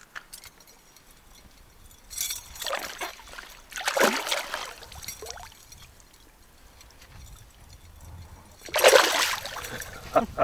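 Hooked rainbow trout splashing and thrashing at the surface beside the boat, in several short bursts about two, four and five seconds in, with the loudest, longest splash near the end.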